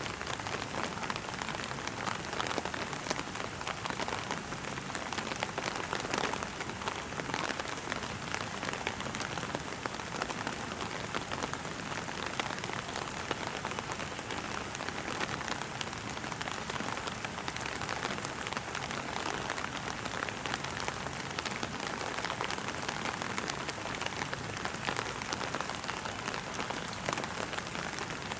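Steady rain pattering, an even hiss of many small drop ticks that does not change.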